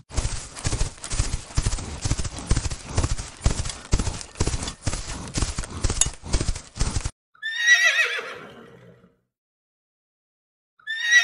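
Hoofbeats of running horses, a dense irregular clatter for about seven seconds that stops abruptly. A horse then neighs with a quavering whinny, and neighs again near the end.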